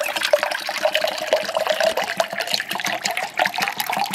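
Water poured in a steady stream into a stainless steel tumbler, splashing, with the filling tone rising slowly as the tumbler fills.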